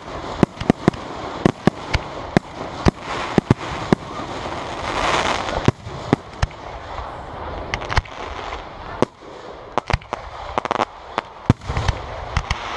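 Aerial firework shells bursting in quick, irregular succession, about two sharp bangs a second, over a constant crackle and hiss. A louder hissing swell comes about five seconds in.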